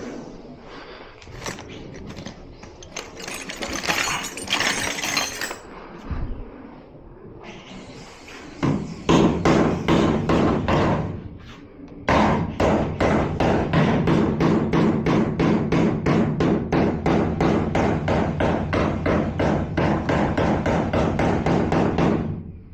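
Hammer beating on a metal tailgate hinge part to bend it into shape: rapid, steady blows, about four a second, with a short pause partway through. Scraping and handling noises come before the hammering starts.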